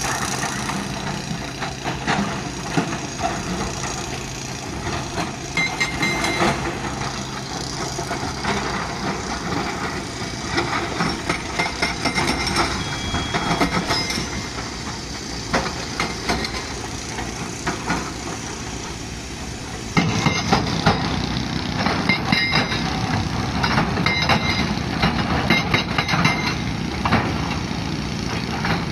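Hydraulic rock breaker on a Kobelco SK220 excavator hammering stone in rapid, repeated impacts over the excavator's diesel engine. It becomes louder and sharper about two-thirds of the way through.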